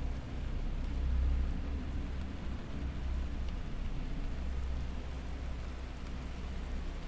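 Binaural-beats meditation track: a steady low drone with an even hiss above it.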